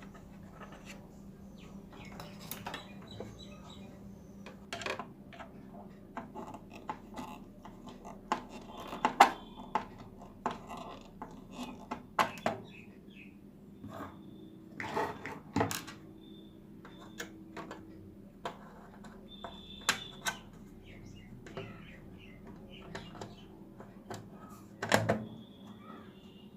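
Irregular small clicks and knocks of a screwdriver and screws as a TV speaker is tightened back into its mounting, with a few sharper knocks about nine seconds in and near the end.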